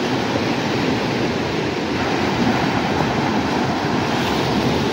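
Steady rushing noise of small waves breaking and washing up a sandy beach.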